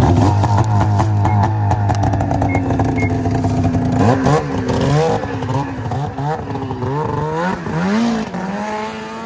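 Snowmobile engine running hard at a steady pitch with a rattling clatter for the first few seconds. From about four seconds in it revs up and down several times as the throttle is worked, then settles to a steady pitch and fades away near the end.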